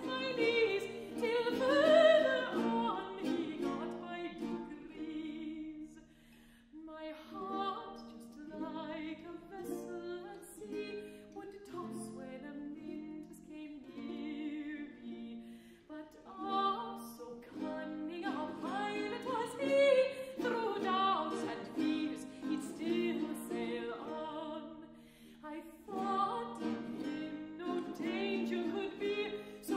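A mezzo-soprano singing a Baroque song in classical style, her held notes wavering with vibrato, accompanied by a baroque guitar. There is a brief break in the singing about six seconds in.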